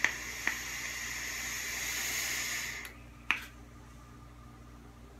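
E-cigarette rebuildable tank atomizer (Moonshot 24 RDTA) with dual Clapton coils firing at 65 watts during a long draw: a steady sizzling hiss of air and vaporising e-liquid that grows slightly louder and stops about three seconds in. Sharp pops come at the start, half a second in, and once more just after the hiss stops.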